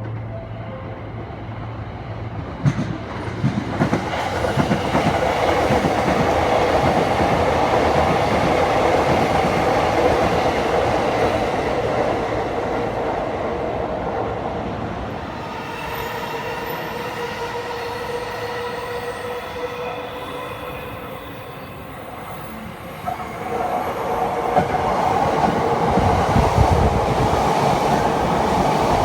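Electric commuter train pulling into the platform: rumbling wheels on the rails with clacks and a steady high whine from the running gear. It eases off a little after 20 seconds, then grows loud again.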